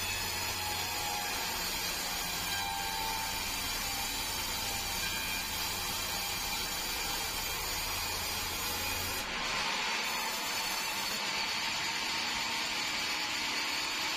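Large stationary sawmill saw running and cutting through meranti timber, a steady mechanical whine and rasp. About nine seconds in, a low hum drops away and the sawing noise turns brighter and hissier.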